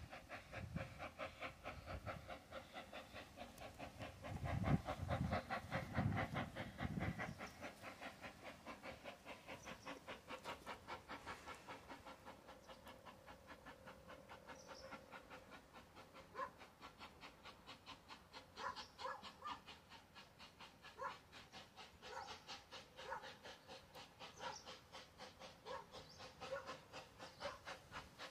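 Corris Railway No.10, a narrow-gauge steam locomotive, working hard uphill: a faint, fast, even beat of exhaust chuffs, about four or five a second. A low rumble sits under the beats about four to seven seconds in.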